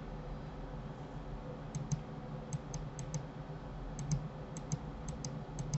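Computer keyboard and mouse clicks while working in 3D modelling software: about seven quick pairs of sharp clicks, each press followed by its release, starting about two seconds in, over a faint steady low hum.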